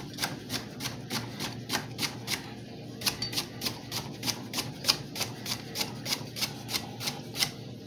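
Chef's knife slicing a cucumber into rounds on a wooden cutting board: a quick, even run of knife strikes against the board.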